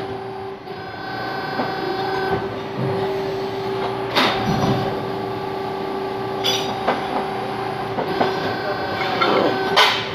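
Steady hum of workshop machinery with a constant tone, broken by a few sharp metal knocks, the loudest about four seconds in and just before the end.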